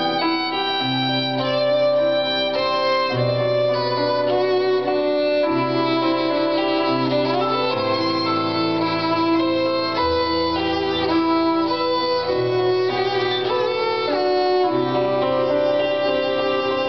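Violin played live on stage over backing music, its held melody notes above a low bass line that steps to a new note every second or two.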